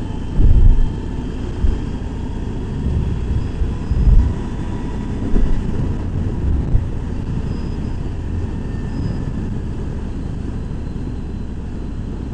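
Wind rushing over the microphone of a moving motorcycle, with heavy low buffeting gusts every few seconds over the steady drone of the bike riding along.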